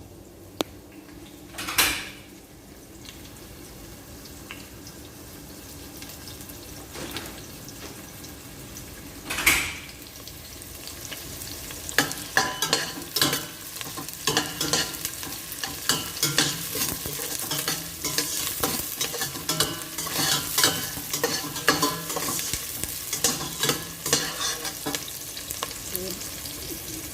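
Food frying in hot oil in a pan: two short loud hisses, then from about twelve seconds in a steady crackling sizzle with many pops.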